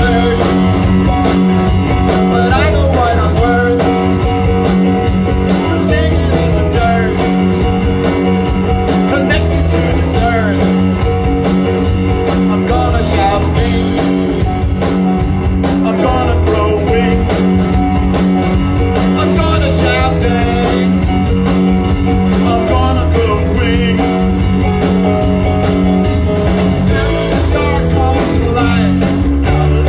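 Live rock band playing steadily: electric guitar, bass guitar, keyboards and drums.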